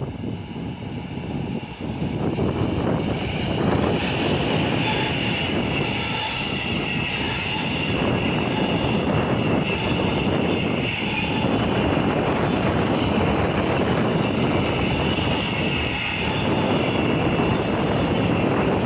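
A freight train of tank wagons running past close by, its wheels rumbling over the rails, getting louder about two seconds in. From about four seconds in, a steady high squeal from the wheels rides over the rumble.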